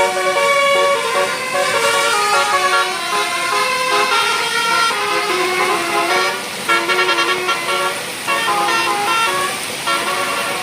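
A bus's Basuri telolet musical horn playing a melody, several horn notes sounding together and stepping from note to note, with a few short breaks.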